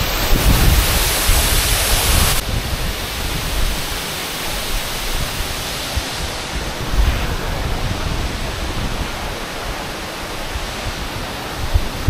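Waterfall: a steady rush of falling water, with gusts of wind buffeting the microphone. The hiss dulls abruptly about two and a half seconds in.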